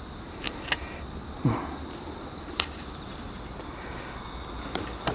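A few light, sharp clicks and a soft knock from hands handling the riflescope and camera, over a faint steady high insect chirring.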